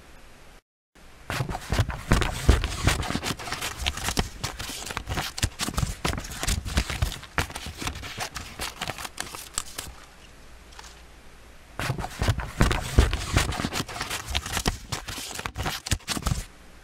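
Handsaw cutting through wood in quick, even back-and-forth strokes. One run of sawing lasts about eight seconds, then there is a pause of about two seconds and a second run of strokes.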